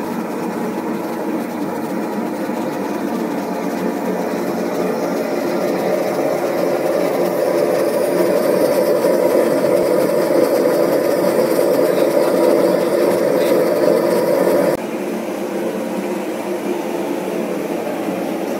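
Steady rushing roar of a gas-fired brick bakery oven's burner flame. It grows louder through the middle and drops suddenly about fifteen seconds in.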